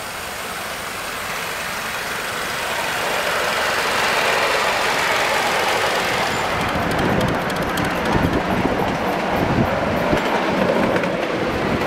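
Ride-on miniature railway train rolling along the track: a rushing noise that builds over the first few seconds, then quick, sharp clicks of the wheels over the rail joints from a little past halfway through.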